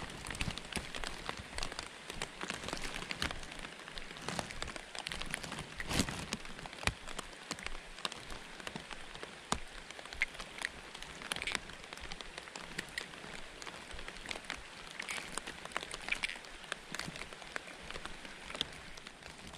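Steady rain falling, heard as a continuous hiss with many small sharp drop ticks.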